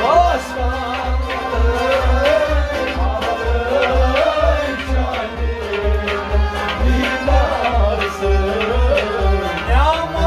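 Kashmiri folk music: a harmonium holds chords and a hand drum keeps a steady beat under a wavering melody line. The singer's voice comes in near the end.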